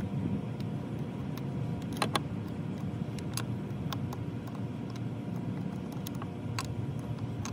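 Scattered light metallic clicks and clinks of an 11 mm wrench being turned and repositioned on the primer fuel fitting of a Johnson/Evinrude outboard, over a steady low rumble.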